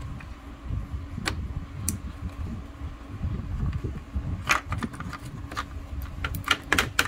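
Flat-blade screwdriver prying and scraping at a stubborn plastic clip, making scattered sharp clicks and ticks that bunch together near the end. A steady low hum runs underneath.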